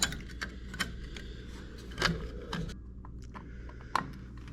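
Scattered clicks and knocks as the cover is fitted back onto a zone valve's control head, the loudest about two seconds in and near the end, over a steady low hum.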